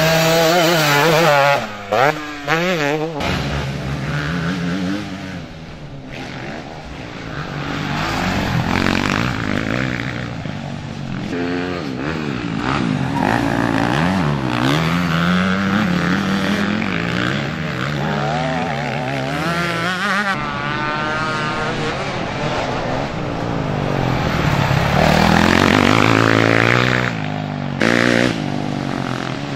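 Motocross motorcycle engines revving up and down, with the pitch rising and falling again and again as several bikes accelerate and shift. The sound breaks off abruptly a few times.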